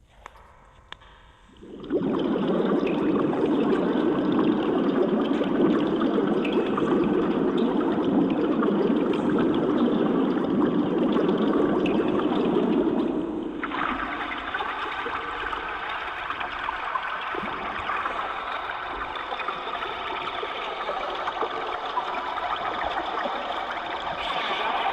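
A rushing, water-like noise starts suddenly about two seconds in. It is deep and heavy at first, then about halfway through it thins to a higher, lighter hiss that runs on steadily.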